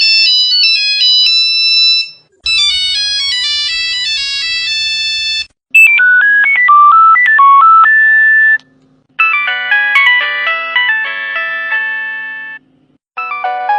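Old Nokia mobile phone ringtones played one after another: short electronic melodies of clean, stepping beep notes. About five different ringtones follow in turn, each cut off by a brief silence before the next starts.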